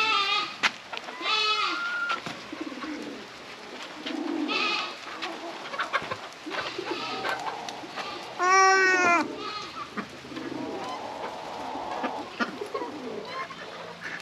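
Young goat bleating several times in wavering, quavering calls while held for an injection under the skin, the longest and loudest bleat about eight and a half seconds in.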